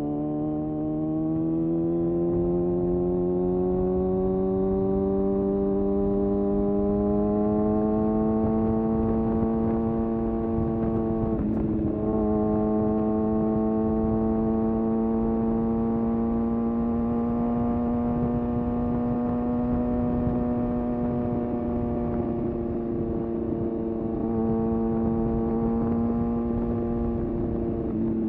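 Kawasaki ZX-6R inline-four sport bike engine pulling under way, its pitch rising gradually over the first several seconds and then holding steady, with a brief dip about twelve seconds in. A rushing noise sits underneath the engine note.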